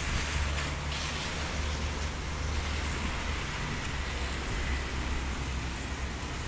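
Steady ambience of light drizzle falling outdoors: an even hiss with a low rumble underneath.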